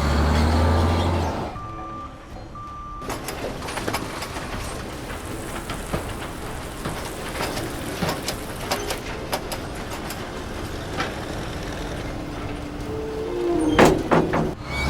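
Cartoon sound effects: a low booming whoosh at the start, then a long stretch of dense, rattling mechanical noise full of small clicks, with a sharp loud hit and a short tone near the end.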